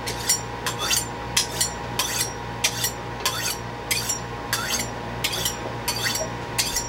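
Kitchen knife being honed on a steel rod: quick metal-on-metal scraping strokes, about three a second and often in pairs, each with a short high ring, stopping near the end.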